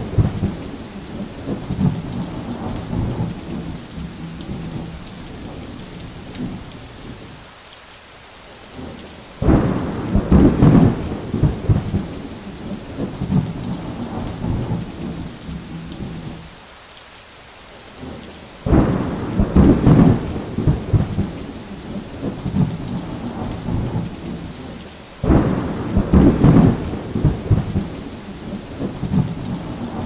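Steady rain with rolling thunder: three loud rumbles swell up and fade away, about a third of the way in, about two-thirds in and near the end.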